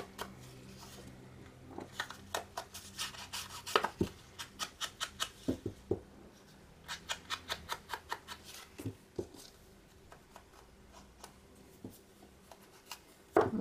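Foam ink blending tool dabbed on an ink pad and along the edges of a paper cutout: quick taps, about three or four a second, in runs with pauses between, growing sparser and quieter in the last few seconds.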